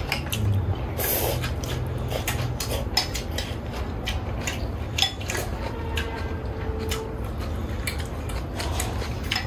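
Eating noises from a bowl of noodle soup: chopsticks and a spoon clicking repeatedly against a ceramic bowl, with chewing and a short slurp about a second in.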